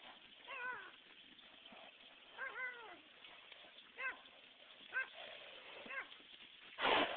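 An animal calling five times in short cries that fall in pitch, spaced about a second apart, followed near the end by a short, loud, rushing blast.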